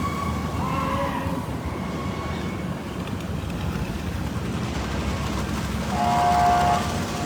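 Steady low street rumble under a siren wailing near the start, then one loud vehicle horn blast lasting under a second about six seconds in.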